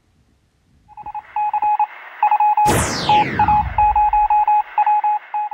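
Electronic beeping from an outro sound effect: short and long beeps at a single pitch, in an uneven Morse-code-like pattern, starting about a second in. About two and a half seconds in, a loud whoosh falls steeply in pitch across the beeps.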